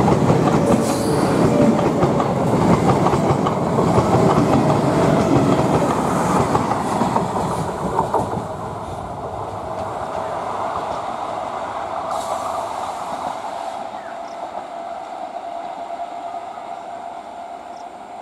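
ICF Medha electric multiple unit local train passing close by, its wheels rumbling and clattering over the rails. About eight seconds in this drops to a quieter, more distant train sound with a steady whine.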